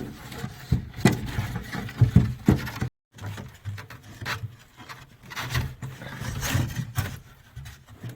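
Wooden boards knocking and scraping as they are set into a stacked lumber pile, with a low steady hum underneath.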